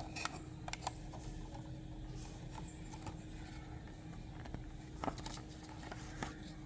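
Faint, irregular clicks and taps of plastic packaging and a small diecast toy car being handled, over a steady low hum.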